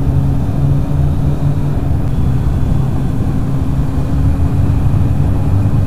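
Motorcycle engine running at a steady cruise on the road, with a constant low drone and rushing wind noise.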